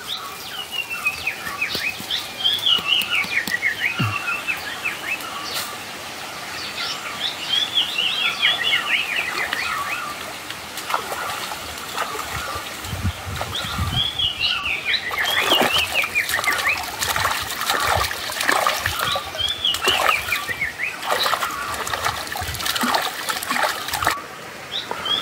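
A bird singing a phrase of quick falling notes, repeated every five or six seconds. From about halfway in it is joined by water splashing and sloshing as hands wash in a shallow stream.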